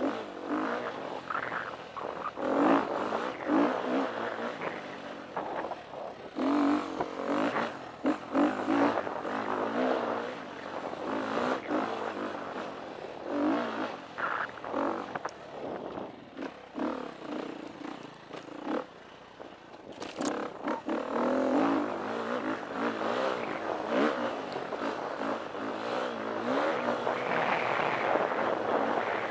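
KTM 350 EXC-F dirt bike's single-cylinder four-stroke engine revving up and down as it is ridden hard over rough trail, with clattering knocks from the bike over bumps. The engine eases off for a few seconds past the middle, then pulls steadily near the end.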